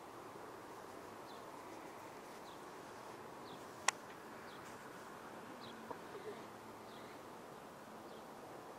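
Faint garden ambience: a steady low buzz with faint short high chirps about once a second, and one sharp click about four seconds in.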